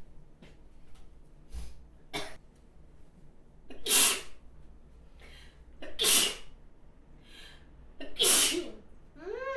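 A person sneezing three times, about two seconds apart, with quieter breaths before and between the sneezes. A short voiced sound follows the last sneeze near the end.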